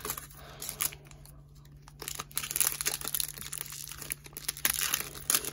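Foil wrapper of a trading-card pack being torn open and crinkled by hand: after a few soft taps, a dense crackly rustle starts about two seconds in.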